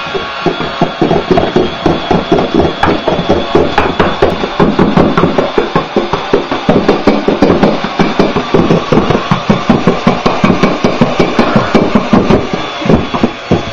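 Electric hand mixer whipping egg whites in a metal bowl: the motor hums steadily while the beaters clatter against the bowl in rapid, loud knocks, several a second.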